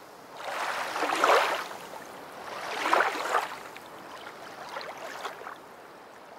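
Water washing in slow swells, about one every two seconds, the first two the loudest.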